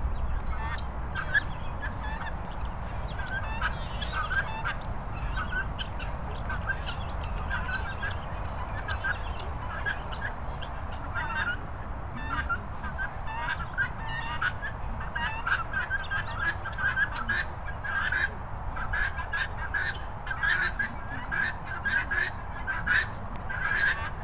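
Guinea fowl calling: a fast run of short, repeated calls that grows busier and louder in the second half.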